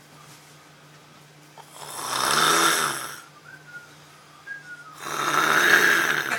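Loud snoring from a sleeper: two long snores, each about a second and a half, roughly three seconds apart, with a faint short whistle between them.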